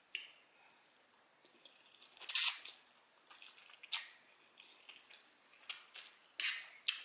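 Cutlery on a dinner plate while eating: scattered light clicks of a fork against the plate, with a louder half-second scrape a little over two seconds in and another short scrape near the end.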